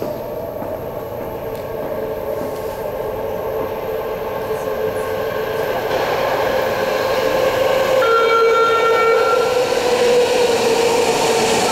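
BART train approaching through the subway tunnel into the station, its rumble and whine growing steadily louder. A brief high tone sounds about eight seconds in.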